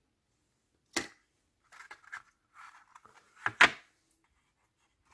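Black plastic SSD packaging tray handled: a sharp click about a second in, light scraping, then a louder knock as it is set down on a paper-covered table.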